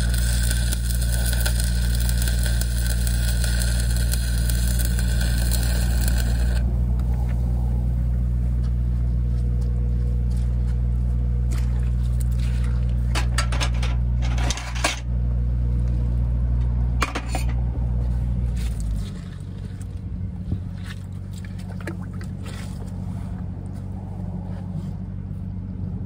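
Stick-welding arc from a 3/32 7018 electrode crackling and hissing over a steady low engine hum; the arc stops about a quarter of the way in. Then come scattered clicks and a couple of sharp knocks, and the engine hum drops and quietens about three-quarters of the way through.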